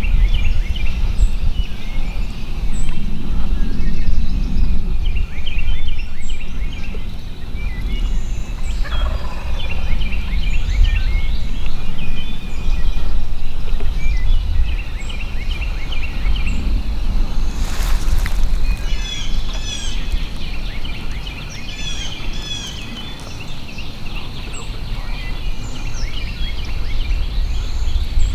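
Wild turkey gobbling in the distance among songbirds singing, over a steady low rumble. A single sharp click sounds about two-thirds of the way through.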